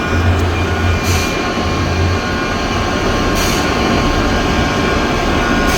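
Heavy machinery running steadily with a low hum in the first two seconds. Short hissing bursts come about every two seconds.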